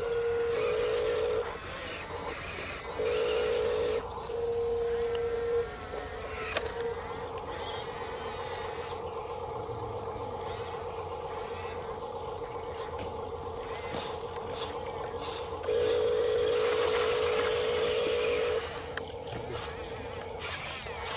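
RC bulldozer's electric drive motors and gearbox running with a steady whine, breaking into a louder warbling whine three times: at the start, about three seconds in, and for a few seconds near the end.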